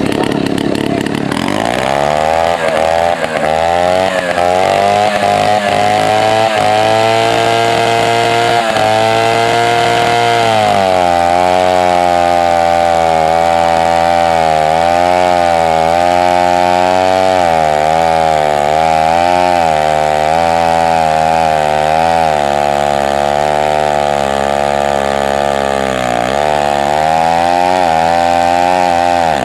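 Antique Stihl BLK gear-drive two-stroke chainsaw running loudly, its engine speed climbing steadily for about ten seconds, then dropping and wavering up and down, with another dip near the end.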